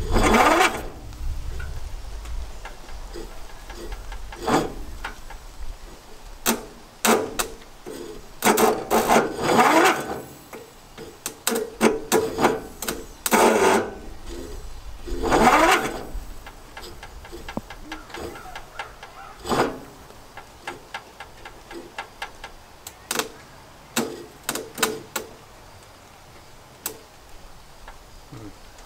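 Metal hand tools and engine parts clinking, clanking and scraping in irregular bursts, with a few louder scrapes.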